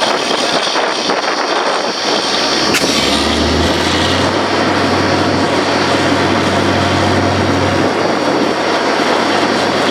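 Truck-mounted borewell drilling rig running: a loud, steady engine-and-machinery din, with a deeper hum joining about three seconds in and dropping away near the eight-second mark.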